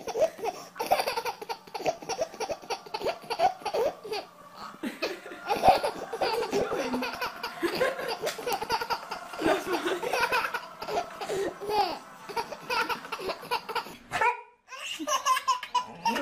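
A baby laughing hard, with repeated giggles and belly laughs. The laughter breaks off for a moment about fourteen seconds in, then a baby laughs again.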